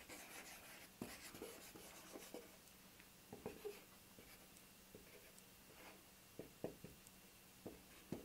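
Faint, scattered small clicks and scratching as a plastic squeeze bottle of wood glue is pressed and its nozzle drawn along an MDF mold, laying down glue.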